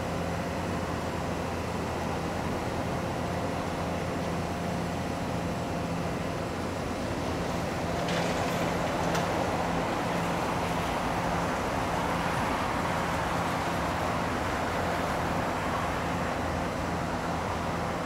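Heavy diesel paving machinery running steadily with a low, even hum. About eight seconds in come a couple of sharp clicks, and a louder rushing noise joins and stays.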